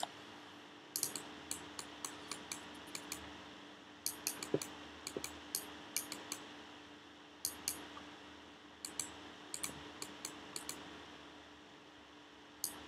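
Faint, sharp clicks of a computer keyboard and mouse, coming in short runs with brief pauses, over a faint steady hum.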